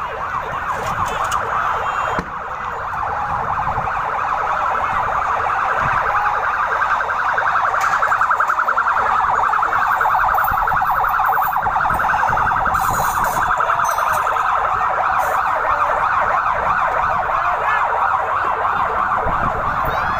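Several emergency-vehicle sirens sounding at once, their fast-warbling yelp and wail tones overlapping steadily.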